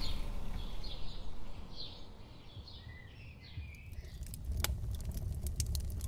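Birds giving a few short chirps, then from about four seconds in a small wood fire crackling, with rapid sharp pops over a low rumble.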